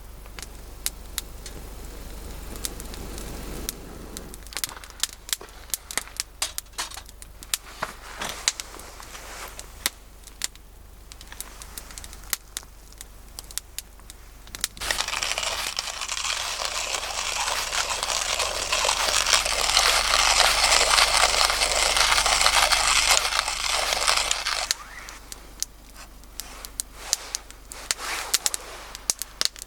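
Wood campfire crackling with many sharp pops. About halfway through, a loud steady hiss joins it for about ten seconds, then stops suddenly.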